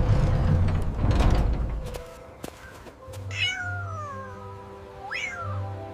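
A loud low rumble for the first two seconds, then a cat meows twice: one long meow falling in pitch, and a shorter one that rises and then falls. Soft sustained music underneath.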